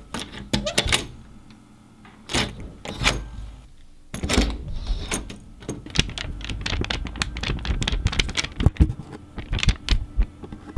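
Polymer banknotes being crinkled and flicked close to the microphone: a few separate rustles and snaps at first, then, from about four seconds in, a dense run of sharp crackles and snaps.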